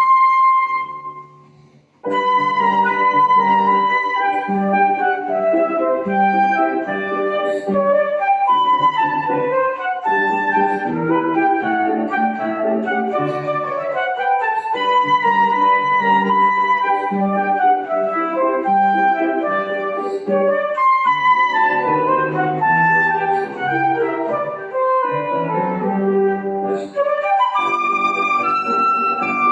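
Flute with piano accompaniment playing a waltz. The music dies away about a second in, pauses briefly, then resumes with a flowing melody over steady low chords.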